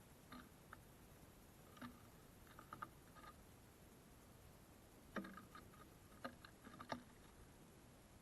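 Near silence with faint, scattered taps and clicks, bunched about two seconds in and again from about five to seven seconds in: small birds pecking and hopping at a bird feeder.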